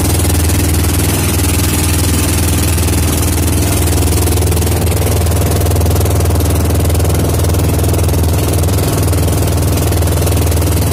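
Outrigger fishing boat's engine running steadily while the boat is under way, a constant low drone.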